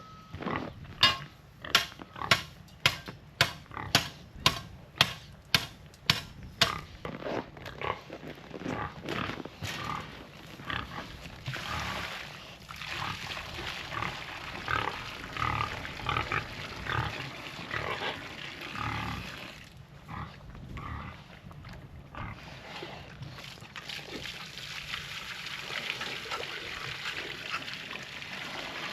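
Pigs grunting, with a run of sharp, evenly spaced knocks, about two a second, in the first several seconds.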